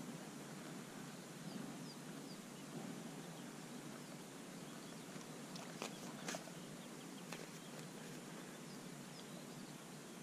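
Quiet riverbank ambience: a steady low background hum with faint, short, high bird chirps scattered throughout. A few sharp clicks come about six to seven seconds in.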